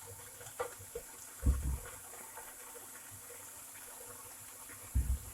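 Sliced pork belly frying in hot oil in a pan: a steady sizzle. Two low thumps break in, one about a second and a half in and one near the end.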